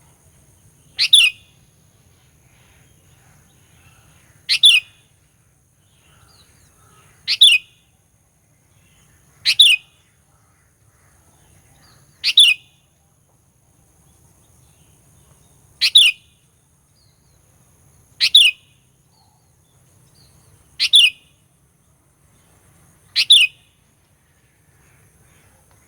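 Sooty-headed bulbul (kutilang) giving a short, sharp two-part call nine times, about every two and a half seconds, each note sweeping down in pitch. It is a lure call used to provoke rival bulbuls.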